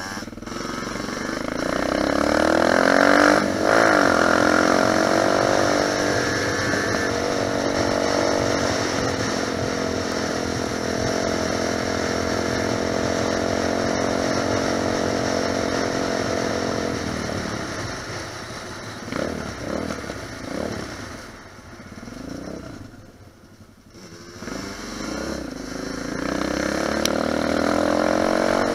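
Dirt bike engine revving up, then holding a steady pitch for about twelve seconds. It drops off, gives several short throttle blips, and picks up again near the end.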